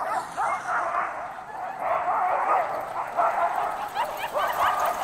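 A chorus of Alaskan huskies yelping, barking and howling over one another, the excited noise of a sled-dog yard as teams take off on a run.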